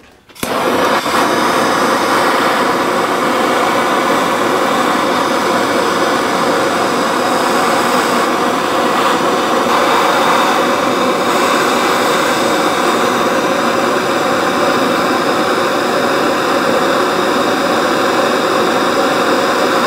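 Gas torch flame running with a steady hiss, lit about half a second in, heating a transmission speedometer drive gear until the metal just starts to change colour.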